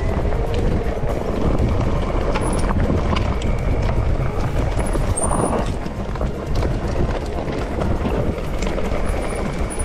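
Mountain bike on a trail: a steady rumble of wind and tyre noise with frequent small rattles and clicks from the bike.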